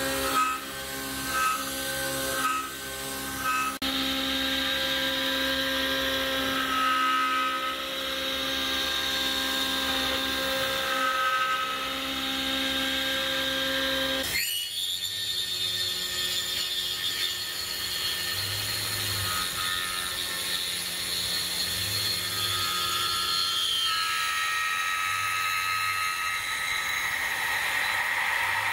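Tormach PCNC 770 CNC mill's spindle driving a 3/8-inch end mill through a deep circular pocket in metal plate: a steady machining sound with high squealing tones, the tool squealing but still cutting. The sound changes abruptly about halfway through.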